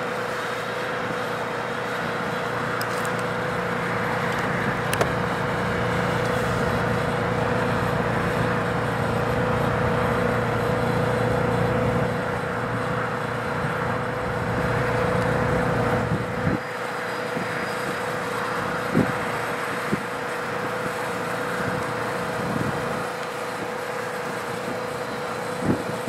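GE diesel-electric freight locomotives, CN ET44AC 3000 leading an ES44AC, working past with a steady engine rumble and a constant high whine. The low rumble falls away about sixteen seconds in as the locomotives go by, and a few short sharp wheel sounds follow from the rolling cars.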